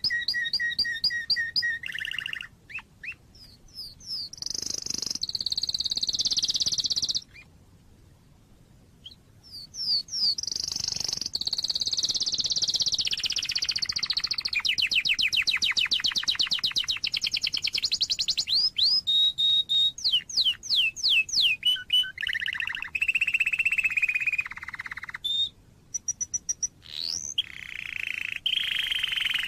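Domestic canary singing a long song of rapid rolling trills and repeated notes, each phrase at its own speed and pitch. There is a pause of about two seconds a quarter of the way in.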